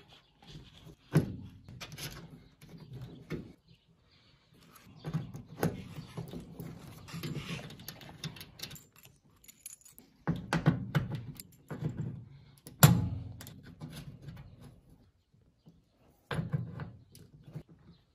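Round metal multi-pin cable connectors being pushed into the axis sockets of a CNC control box and their knurled collars screwed on: irregular metallic clicks and rattling with cable handling, in clusters with short pauses, the sharpest click about 13 seconds in.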